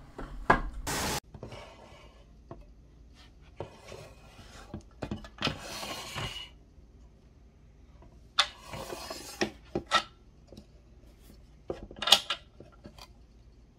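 Small metal handle hardware and its bolt clinking and scraping against the box as they are fitted by hand: scattered sharp clicks with a few short rubbing scrapes.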